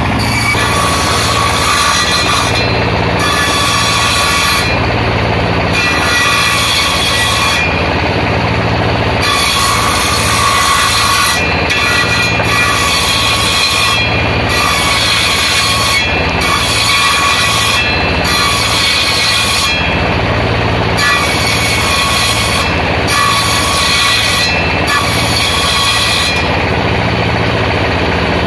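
Table circular saw ripping waru (sea hibiscus) planks. Under a constant motor hum, the high cutting whine starts and drops away every two to three seconds as plank after plank is fed through the blade.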